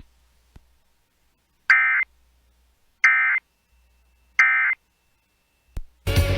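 Three short buzzy digital bursts, about a second apart: a NOAA Weather Radio SAME alert header, the encoded data that precedes a new warning broadcast. Music starts near the end.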